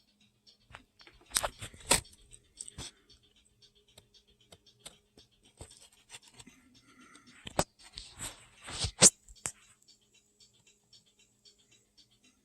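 Small parts being handled close to the microphone: scattered sharp clicks and short rustles, loudest about two seconds in and again around eight to nine seconds, over a faint fast regular ticking and a low steady hum.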